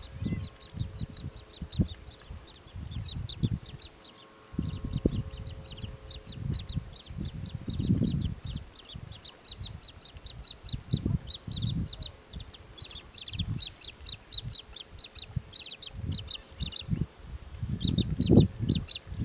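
Pied kingfisher calling: a rapid run of short, high chirps, several a second, with irregular low rumbles beneath that are loudest near the end.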